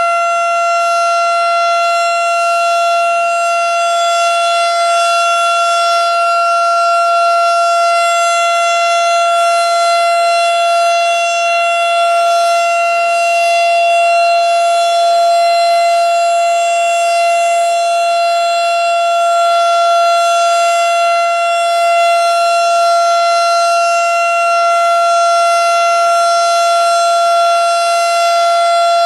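Outdoor tornado warning siren sounding a steady alert: a single unwavering tone that does not rise, fall or pulse.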